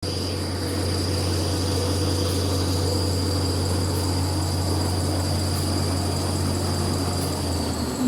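Kitchen towel and toilet paper roll making machine running: a steady low hum with a thin, steady high whine over it.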